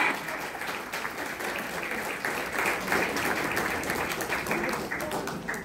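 Audience applauding: a dense patter of many hand claps that starts as the music stops and thins out near the end.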